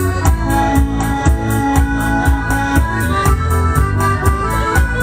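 Electronic keyboard playing an instrumental dance passage with an organ-like sound, a bass line and a programmed rhythm accompaniment keeping a steady beat of about four ticks a second.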